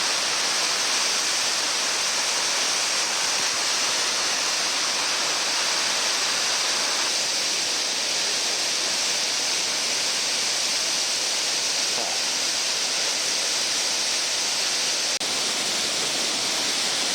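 Siffleur Falls, a powerful waterfall on the Siffleur River, pouring steadily: a loud, even rush of falling water with a momentary break about fifteen seconds in.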